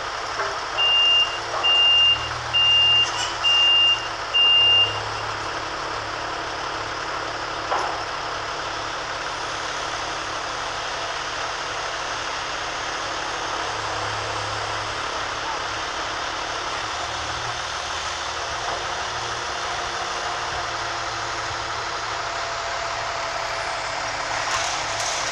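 A vehicle reversing alarm beeps five times, about a second apart, over the steady running of heavy construction machinery. Near the end the machinery noise grows louder, with some clatter.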